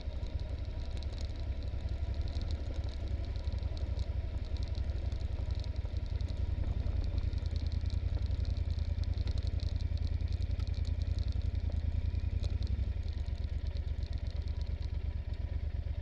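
Yamaha Super Ténéré's parallel-twin engine running steadily at low revs while the motorcycle rolls over a rough gravel track, with a constant patter of small ticks and clatter from the stones. The engine is a little louder from about six seconds in.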